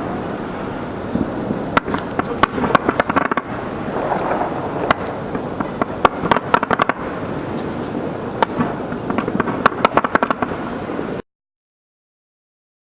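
New Year's Eve fireworks display: rapid sharp bangs and cracks over a steady din, cutting off abruptly to silence near the end.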